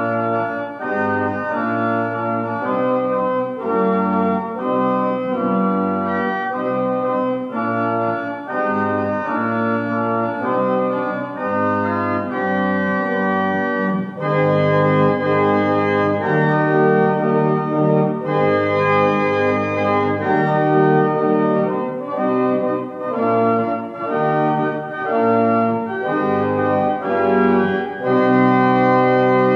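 Church organ playing a prelude in sustained chords, the notes moving every half second or so. It grows fuller and louder from about halfway through.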